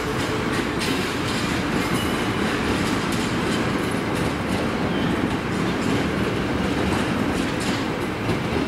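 DD51 diesel locomotive hauling flat wagons: a steady rumble of engine and running gear, with wheels clicking over rail joints.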